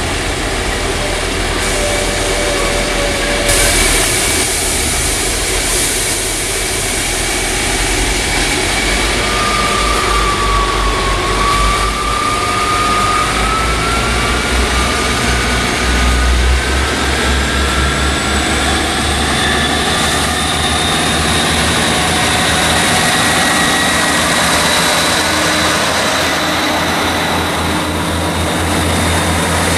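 A Class 158 diesel multiple unit running slowly into the station: a steady diesel engine drone and rail noise, with a thin whine that dips and then climbs in pitch as the train draws near.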